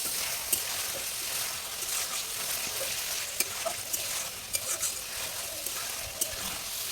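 Chicken pieces sizzling in hot oil in an uncovered pan while being stirred, with a steady hiss and scattered clicks and scrapes of the spatula against the pan. The meat is being fried down dry for a bhuna.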